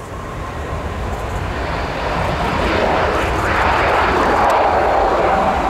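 CFM56 jet engines of an Airbus A319 rolling along the runway, probably during landing rollout. The roar builds over the first few seconds as the aircraft draws level, then holds loud, with a whine that sinks slightly in pitch near the end.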